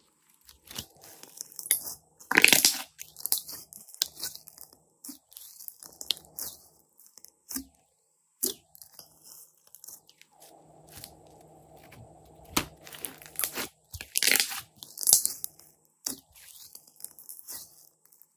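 Thick slime being squeezed, poked and stretched by hand: irregular sticky crackles, pops and squelches, with louder bursts of crackling about two and a half seconds in and again around fourteen to fifteen seconds.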